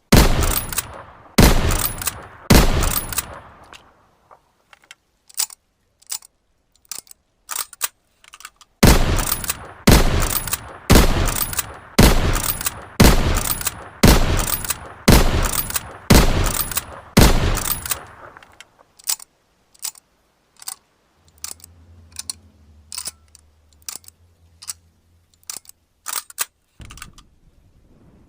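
Lever-action rifle shots with echoing tails: three in the first few seconds, then a run of about nine at roughly one a second. Between and after the shots come quieter metallic clicks of the lever being worked.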